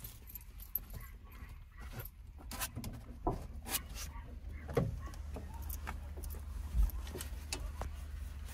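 Small clicks and rustles of a puppy's harness buckles and padded dog coat being handled and fastened, over a low steady rumble, with dogs calling now and then in the background.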